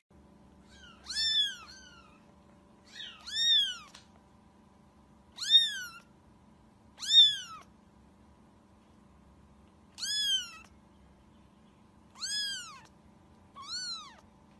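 A cat meowing repeatedly: seven high calls, each rising then falling in pitch, spaced one and a half to three seconds apart.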